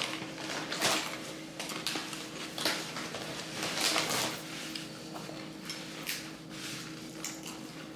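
Close-up chewing of a mouthful of chips and buffalo dip, with irregular crisp crunches and a steady faint hum behind.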